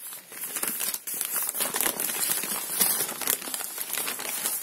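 Sheet of packing paper crinkling and rustling continuously as it is unfolded by hand.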